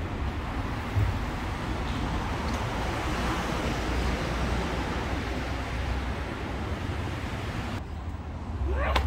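Steady downtown street noise with passing traffic and a low rumble. The sound changes near the end, and a short rising whoosh comes just before it stops.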